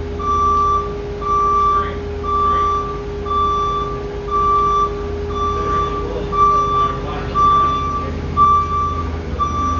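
A vehicle's reversing alarm beeping steadily, about one beep every three quarters of a second, over the low hum of a running engine.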